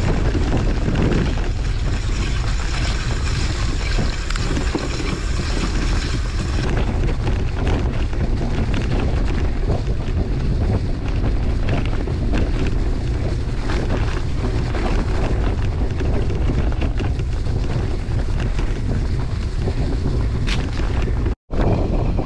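Wind buffeting the microphone of a bike-mounted camera riding a gravel track in strong gusty wind: a steady, loud rush heavy in the lows. The sound cuts out for a moment near the end.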